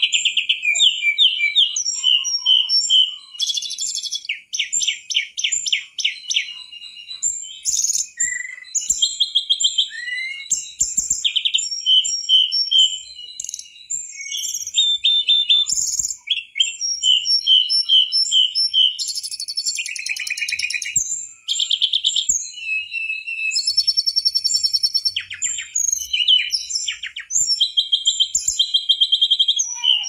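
Mangrove blue flycatcher (tledekan bakau) singing a loud, varied song almost without pause: rapid high trills, runs of short whistled notes and repeated phrases.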